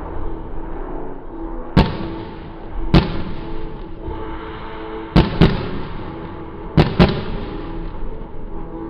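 Aerial fireworks going off: six sharp bangs spread over several seconds, the last four coming as two quick pairs.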